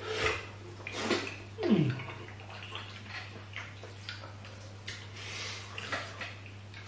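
Wet squelching, smacking and chewing of banku and slimy okra stew being eaten by hand, in scattered short smacks, with a brief falling vocal sound about two seconds in.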